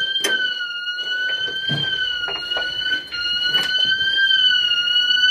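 A tripped building alarm sounding: one continuous high-pitched electronic tone whose pitch wavers slowly up and down, with a brief break about three seconds in. Short knocks and clicks of handling and movement are heard over it.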